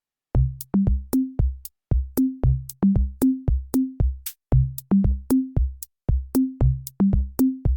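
Electronic background music: a drum-machine beat of sharp kick and snare hits with short bass notes, starting about a third of a second in.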